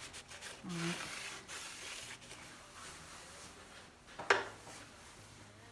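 Rubbing on a part of a DeWalt DW735 thickness planer's blade assembly, a scratchy sound lasting about two seconds, done to clear leftover buildup or oil. A single sharp click a little over four seconds in.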